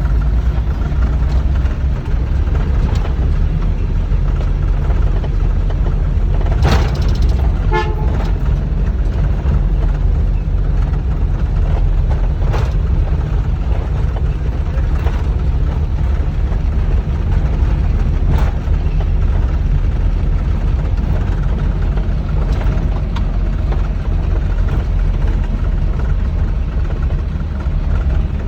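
Rice combine harvester engine running with a steady, low drone, with a few sharp clicks or knocks now and then.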